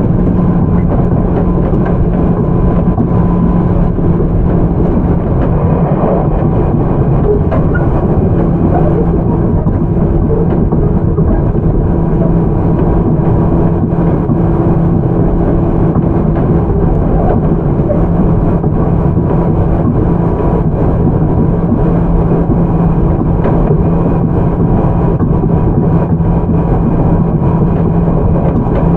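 On-board running sound of a JR 211 series electric train in its MT61-motored car, moving at a constant speed. The steady motor and gear hum keeps one pitch over the rumble of wheels on rail.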